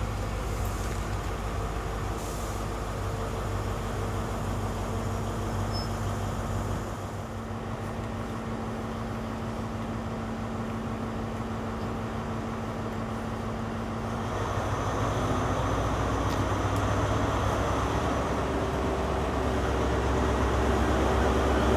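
Diesel train at a station running with a steady low hum. About two-thirds of the way through, a louder rumble builds and keeps growing as the train gets under way or another train approaches.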